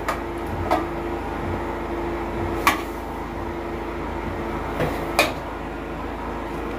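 Four or five sharp clinks and knocks of kitchen utensils against a pot, the loudest nearly three seconds in and just past five seconds, while boiled fish is separated from the meat. A steady hum runs underneath.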